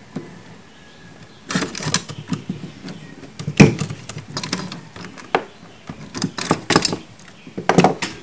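Screwdriver prying at the rubber seal in the steel lid of an ammo can, metal tip scraping and clicking against the lid's edge. Irregular sharp clicks and knocks start about a second and a half in, the loudest near the middle.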